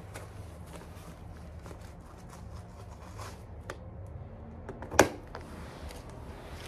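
Light household handling noises and small clicks over a steady low hum, with one sharp clack about five seconds in.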